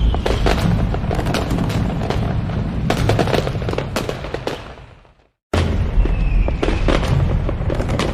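Fireworks display: dense crackling and popping over deep booming, with a short falling whistle near the start. The sound fades away about five seconds in, goes silent for a moment, then cuts back in abruptly at full loudness with another falling whistle.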